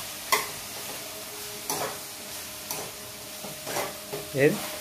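A metal spatula scraping and tapping against a non-stick kadai as chicken livers are stirred, with a soft frying sizzle underneath. A few separate scrapes, and a short vocal sound near the end.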